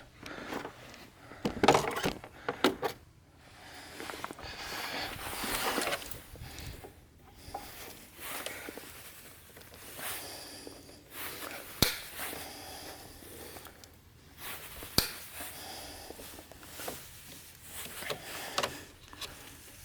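Rubber hose being cut to length and handled, with scattered rustling and scraping and a few sharp clicks.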